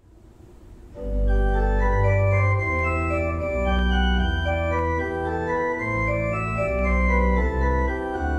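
Organ music: sustained chords over deep bass notes, coming in faintly and swelling to full volume about a second in.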